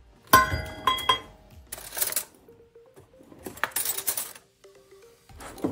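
Kitchenware clinking as a brine is measured out: two ringing clinks of metal or glass about half a second apart, then a few short rattling, hissing bursts of handling noise.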